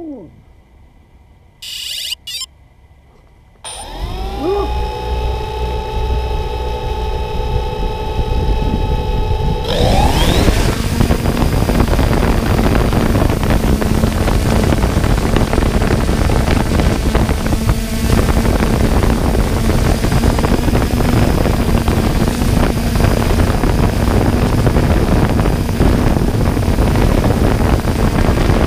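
3DR Solo quadcopter's motors spin up to idle about four seconds in, a steady hum of several pitches. About ten seconds in they rev up in a rising whine as it lifts off. Then comes a steady propeller drone with a rush of air as it climbs.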